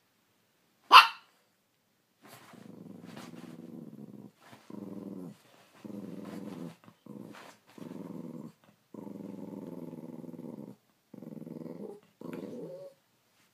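A small dog gives one sharp, loud bark, then growls in a string of low rumbling growls, each up to about two seconds long with short breaks between; the last growl rises in pitch at the end.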